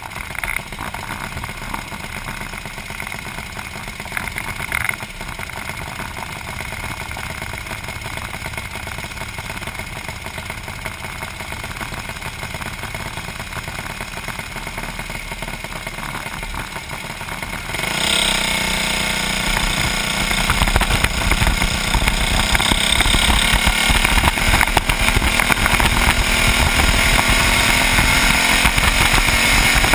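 Small kart engine heard through an onboard camera mounted on the kart: idling steadily, then a little past halfway it revs up sharply and stays loud at high revs as the kart accelerates away on the dirt track.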